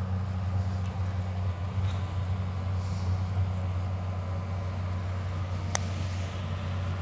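A steady low engine hum. One sharp click comes near the end: a putter striking a golf ball.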